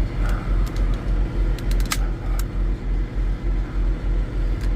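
A low engine rumble, steady and pulsing about three times a second, like a diesel idling nearby. Over it, a few light clicks and scrapes about two seconds in, from a screwdriver prying up plastic trim held by clips.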